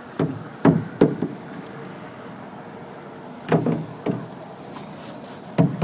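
Paddle strokes on a small boat in floodwater: sharp knocks of the paddle against the boat, each with a short trail, three in quick succession in the first second, two more around three and a half to four seconds in, and one near the end. The strokes are pry strokes, the paddle dug deep and levered to push the boat against the current.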